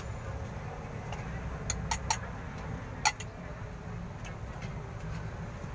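A metal spoon clinking against metal cookware while boiled corn is scooped into a cup: three quick clinks a little under two seconds in, then a single sharper one about a second later, over a steady low rumble of street traffic.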